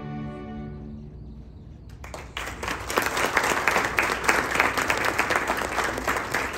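A string orchestra's final held chord fades away in the first second or so, and after a brief hush the audience breaks into applause, with dense clapping from about two seconds in.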